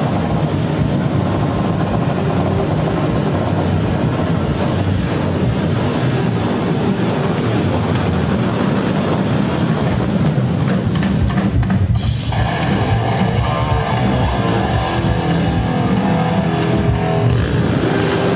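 Loud live rock music over a stage PA: electric guitar and drum kit, with electronics from a laptop. The sound changes abruptly about twelve seconds in.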